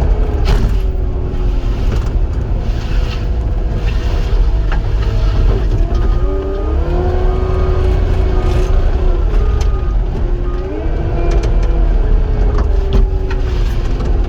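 Cat 259 skid steer working: its diesel engine runs with a heavy, steady rumble while a whine rises and dips several times as the machine is worked. A few sharp knocks are heard along the way.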